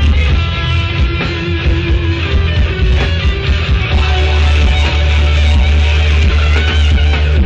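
Live rock band playing loud, heavy rock with electric guitar, with a strong booming low end from bass and drums.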